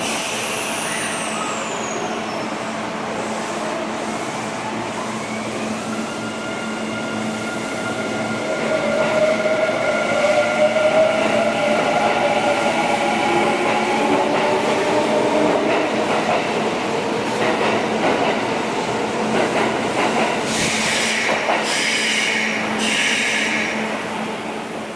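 Kintetsu commuter electric train pulling out of the platform: its motors give a whine that rises in pitch as it accelerates, and the sound swells as the cars pass. Near the end come several sharp clacks of wheels over rail joints before it eases off.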